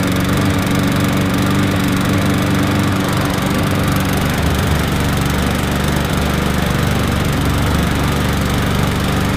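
Walk-behind rotary lawnmower's Briggs & Stratton Classic single-cylinder four-stroke engine running steadily and evenly, with a slight change in its note about four seconds in.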